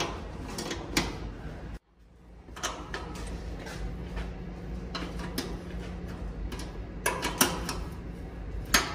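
Sheet-metal panel on an old riding mower's body clanking and rattling as it is handled and fitted by hand, in scattered knocks that bunch up about seven seconds in and again near the end, over a steady low hum.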